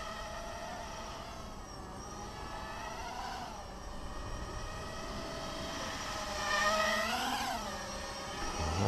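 Brushless motors and propellers of a 250-size quadcopter whining in flight, heard close from its on-board camera. The pitch wavers with the throttle and swells up then falls about seven seconds in. The quad is flying with a vibration that the pilot places as side to side in both front motors.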